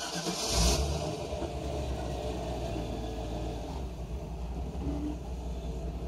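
A vehicle engine starting, with a brief loud rev under a second in, then running steadily.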